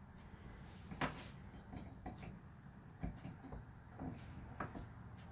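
Light knocks and small metallic clinks of Murray transaxle parts being handled as a washer is fitted onto the shifter shaft: a sharper knock about a second in, then several softer ones spread through the rest.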